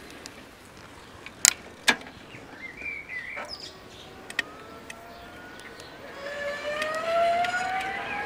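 E-bike's Bafang hub motor whining as the bike approaches, the whine rising steadily in pitch as it speeds up and growing louder from about six seconds in. Two sharp clicks come about a second and a half in, and a short bird chirp follows about three seconds in.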